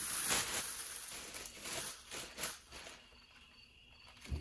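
Black plastic garbage bag rustling and crinkling as it is pulled back from around a cylinder head, busiest for the first three seconds and then dying down, with a short knock near the end.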